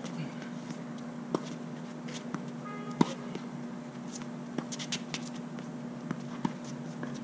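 Tennis ball hit with rackets and bouncing on a hard court during a rally: a series of sharp pops, the loudest about three seconds in, over a steady low hum.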